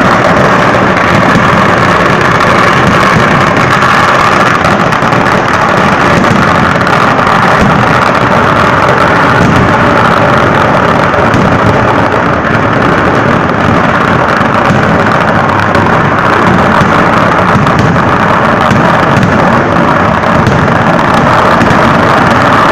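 Kerala vedikkettu fireworks in a massed barrage: firecracker explosions so close together that they merge into one continuous, loud din with no pauses.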